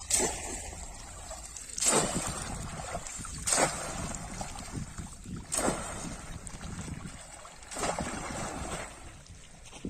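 A polo fishing trap being plunged into shallow water, making sharp splashes five times about two seconds apart, with water sloshing in between.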